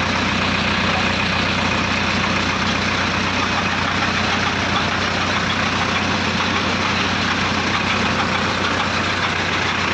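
Truck-mounted borewell drilling rig running, its JCB engine driving the rig's belts and pulleys: a steady mechanical din over a constant low engine hum.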